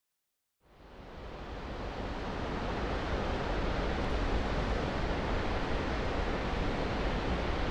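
A steady outdoor rushing noise with a low rumble, fading in from silence about half a second in and building to a constant level over the next couple of seconds.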